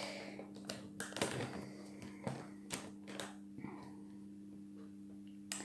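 Scattered light clicks, taps and soft rustles from handling a paper medicine package leaflet at a table, over a faint steady low hum.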